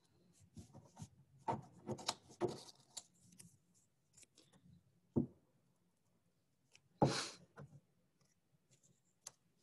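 Faint craft-table handling sounds: scattered rustles and light taps as paper pieces are picked up and pressed onto a glued paper cowboy hat. There is a sharp tap about five seconds in and a louder rustle about seven seconds in.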